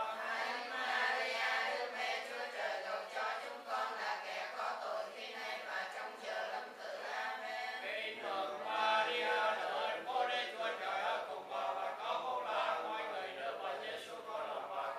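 A congregation of many voices chanting prayers together in Vietnamese, a steady unbroken group recitation in unison.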